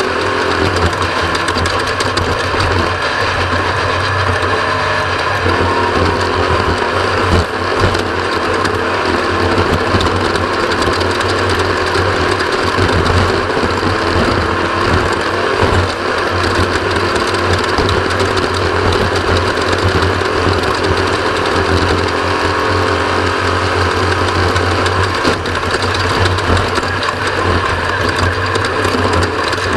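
Off-road race vehicle's engine running continuously at speed, heard onboard, with a steady drone and no break.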